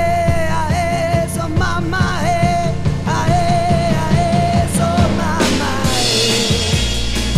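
1971 Argentine rock song: the lead singer holds long, wavering notes over a steady drum and bass beat.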